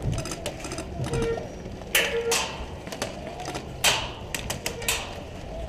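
Irregular sharp cracks and clicks, a few much louder than the rest, over a steady low rumble.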